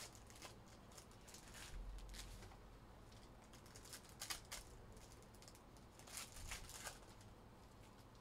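Faint rustling and light clicks of trading cards and pack wrappers being handled, with a few short, louder swishes about four seconds in and again between six and seven seconds.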